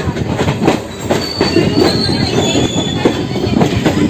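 Passenger train running through station trackwork, wheels clacking over rail joints and points, with a thin high wheel squeal about a second in.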